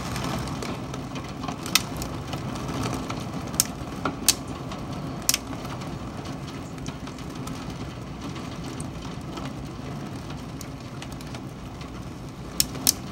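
Steady rush of heavy rain and wind in a hailstorm, with sharp knocks of hailstones hitting: one about two seconds in, a cluster between three and a half and five and a half seconds, and two close together near the end.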